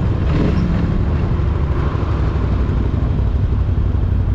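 Quad bike engines running at low speed, a steady low rumble.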